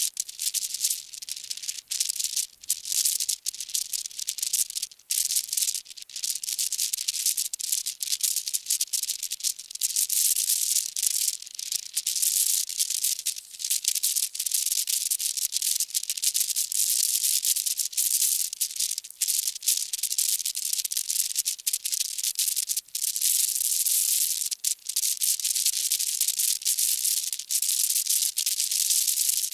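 Steady high-pitched hiss of background noise, broken by many brief dropouts.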